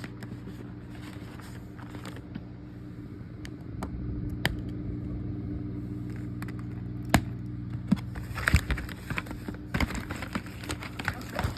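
Scattered clicks, snaps and crinkles of a doll being worked free of its cardboard-and-plastic packaging, getting busier toward the end, over a steady low hum.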